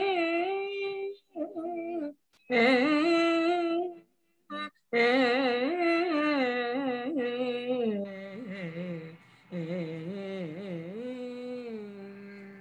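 A woman singing a Sanskrit shloka solo in Carnatic style, her notes sliding and wavering in ornamented phrases with short breaths between them. In the second half the line drops lower and softer into long held notes as the piece closes.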